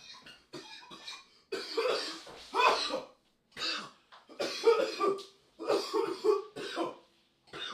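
A man in a coughing fit from inhaling a vape cartridge: a string of harsh coughs in several bursts, with short silent gaps between them.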